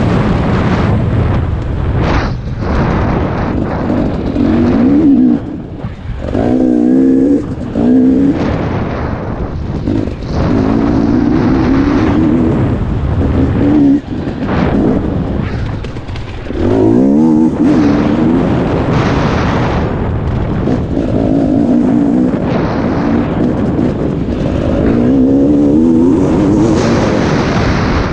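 Enduro dirt bike engine heard from the rider's helmet, revving up and dropping off again and again as the throttle is opened and closed. There are a few brief lulls, and one climbing rev about two-thirds of the way through.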